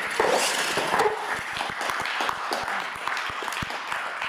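Spectators clapping and applauding: a dense patter of hand claps, with a few voices mixed in.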